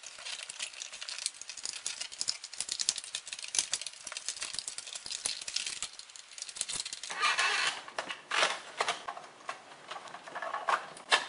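Plastic retaining clips on a Toyota Tacoma factory radio's dash bezel being pried and released: a dense run of rapid plastic clicking and rattling, then several louder separate clicks and knocks in the last few seconds.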